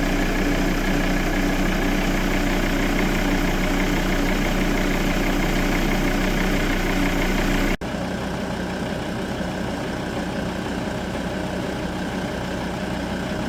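Volvo V70's D5 five-cylinder turbodiesel idling steadily. About eight seconds in, a cut leads to a second, quieter take of the engine running.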